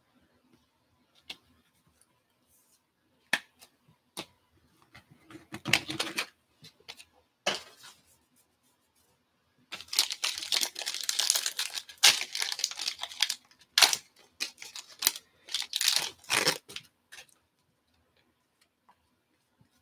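A Topps Tribute trading-card pack's foil wrapper crinkling and being torn open by hand. A few light clicks come first, then short crinkles around six seconds in, and a long run of crinkling and tearing from about ten to seventeen seconds.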